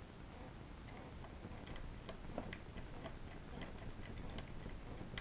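Screwdriver driving the small screws back into a Kaba Simplex 1000 mechanical pushbutton lock. It makes a faint string of light, irregular metal clicks, a few a second.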